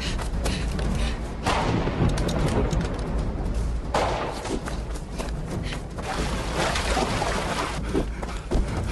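Thriller film soundtrack: tense music over a steady deep bass, with heavy thuds and booms. Sudden loud hits come about a second and a half in and again about four seconds in.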